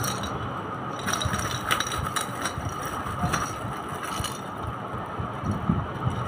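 Clear plastic protective film crinkling and crackling as it is handled and peeled off a baby walker's plastic toy tray, with scattered small clicks and taps over a steady background hum.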